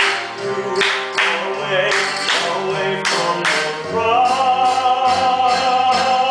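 A man singing a show tune, moving through short sung phrases and then holding one long note from about four seconds in.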